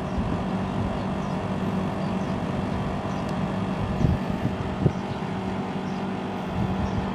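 National CU-915KH mini-split air conditioner outdoor unit running noisily with a steady hum, with two brief thumps about four and five seconds in. The owner puts the noise down to worn-out vibration absorbers in the aging unit.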